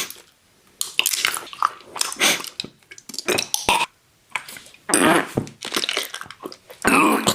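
Loud, close-up mouth sounds of a person eating, in irregular bursts with short pauses.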